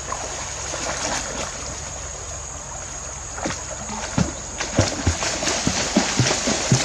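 Water splashing and sloshing, with short irregular splashes coming thick and fast from about halfway through. Under it runs a steady high-pitched insect drone.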